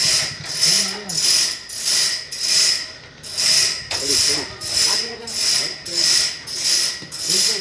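Sawmill machinery working in a steady cycle: a hissing, grinding stroke repeats about every 0.6 seconds.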